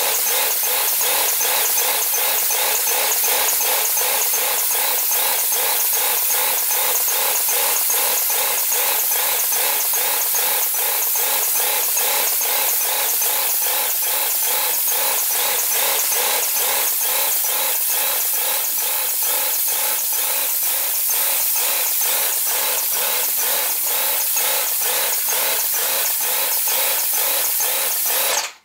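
Wagner Control Pro 250M airless paint sprayer running under load as paint is sprayed: the pump motor works with a fast, even pulse under a steady hiss from the spray tip. It cuts off suddenly near the end.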